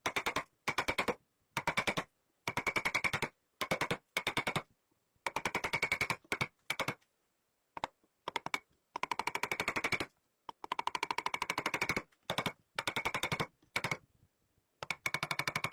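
Rapid, evenly spaced mechanical clicking, about fifteen clicks a second, in bursts from half a second to about two seconds long with silent gaps between.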